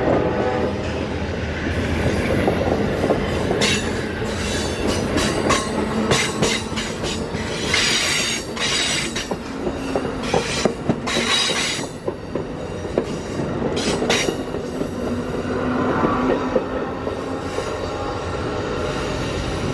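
Amtrak passenger cars rolling past close by as the train pulls away, a steady rail rumble with a run of sharp clicks and knocks from the wheels over the rail joints through the middle stretch.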